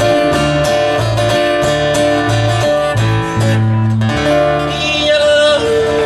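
Live country music: a steel-string acoustic guitar strummed over an electric bass line, in an instrumental passage.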